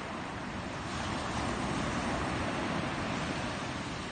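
Surf washing onto a sandy beach: a steady rush of breaking waves that swells about a second in and eases near the end, with some wind on the microphone.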